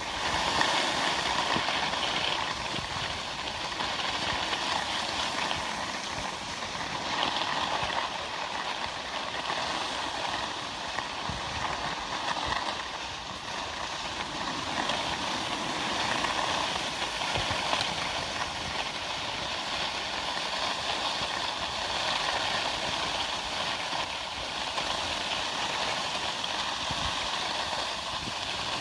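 Skis sliding over groomed snow: a steady hiss that swells and eases every few seconds.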